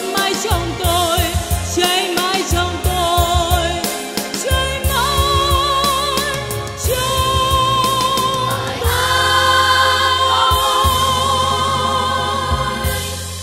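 A Vietnamese song performed live: voices sing long held notes with vibrato over instrumental accompaniment, with a choir joining in.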